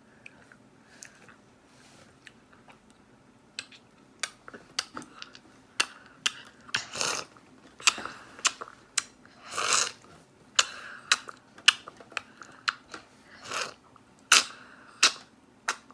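Eating sounds over dumpling soup: irregular sharp mouth smacks and clicks, with short slurps of broth coming every second or two from a few seconds in.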